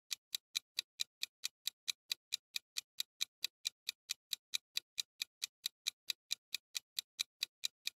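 Countdown timer ticking sound effect: clock-like ticks, even and rapid at a little over four a second, marking the time left to guess.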